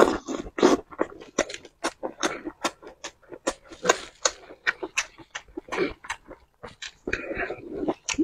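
Close-up chewing of grilled sausage in chili oil: wet, irregular lip smacks and mouth clicks as a mouthful is bitten and chewed with the mouth closed, with a thicker stretch of mouth noise about seven seconds in.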